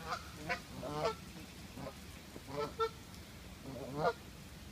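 Geese honking: a string of short calls, the loudest about four seconds in.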